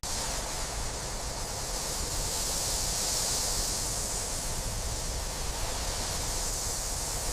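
Steady rushing hiss of wind and road noise from a truck driving with its load, starting and stopping abruptly.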